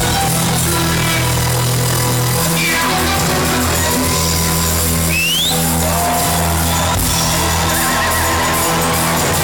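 Live reggae/dancehall show-opening music over a concert PA, with a heavy steady bass line. A brief rising high-pitched sweep cuts through about five seconds in.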